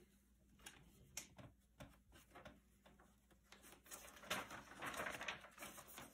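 Faint rustling and crinkling of paper sheets being handled and turned over. There are scattered small crackles, then a longer rustle about four seconds in.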